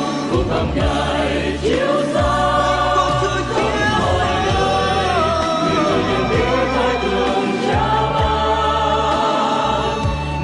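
Gospel choir singing a Christian song over instrumental backing with a steady bass.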